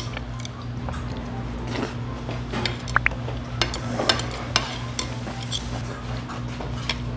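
Metal spoon and chopsticks clinking and scraping against a plate of noodles in sauce while eating, with scattered light clinks and a short squeak about three seconds in.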